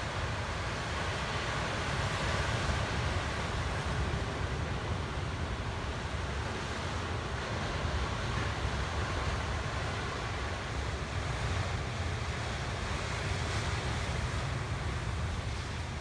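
Ocean surf breaking and washing over rocks, a steady rushing wash with a low rumble of wind buffeting the microphone.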